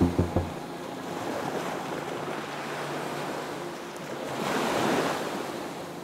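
Ocean surf: a steady wash of waves breaking on a beach, with one wave surging louder about four to five seconds in. A rhythmic pulsing sound dies away in the first half second.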